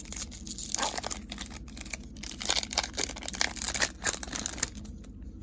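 Foil trading-card pack wrapper being torn open and crinkled: a dense run of crackles and rustles that dies down near the end.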